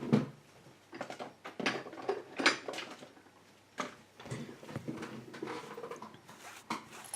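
Key pins being tipped and tapped out of a padlock plug: a run of irregular light metallic clicks and clinks, with small handling rattles in between.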